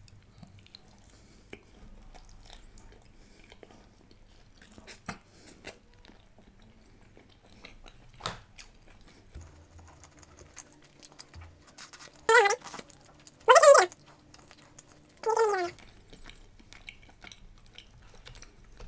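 A person chewing chicken curry and paratha close to the microphone, with scattered wet mouth clicks and smacks. About twelve, thirteen and fifteen seconds in he makes three short vocal sounds, the loudest things here, the last one falling in pitch.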